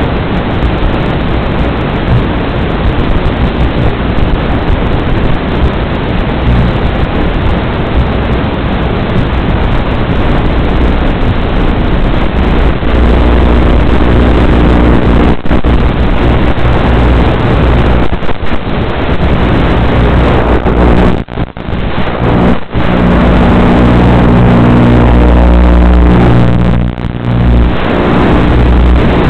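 Quadcopter's electric motors and propellers running, heard close up through the drone's onboard camera microphone: a rough rushing noise at first, settling about halfway through into a steadier hum with a distinct pitch, with brief dips in level a few times near the end.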